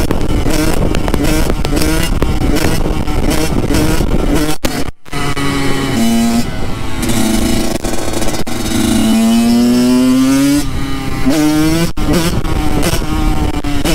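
Kawasaki KX85's two-stroke engine running hard under way, with wind rush on the helmet microphone. After a brief dropout a little under five seconds in, the engine pitch steps up and climbs over several seconds, drops, then rises again near the end as the bike is held up in a wheelie.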